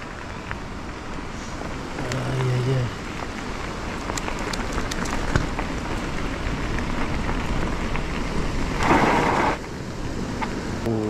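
Steady rushing noise of riding a bicycle: wind on the microphone and the tyres rolling, with scattered ticks. A brief low hum comes about two seconds in, and a short, louder burst of noise about nine seconds in.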